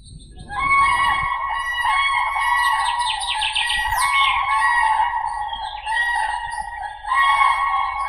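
Common cranes (Grus grus) calling: loud, rolling trumpeting calls that overlap one another without a break. They start suddenly about half a second in and ease briefly near the end before swelling again.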